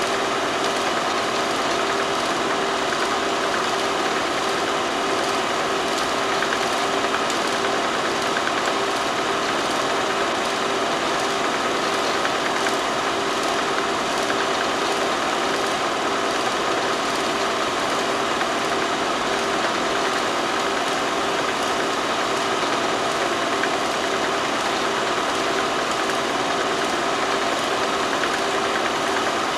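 Steady mechanical hum and hiss with a few fixed tones and no separate events. It is background noise on the transfer of a silent film, not the sound of the welding or crane work shown.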